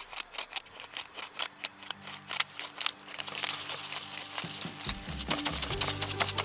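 Rapid small clicks and crinkling, like something being handled, with background music fading in about two seconds in and deeper bass notes joining near the end.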